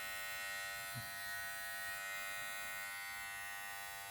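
Powertec TR-6700 cordless hair clipper running with a steady motor buzz. There is a soft knock about a second in.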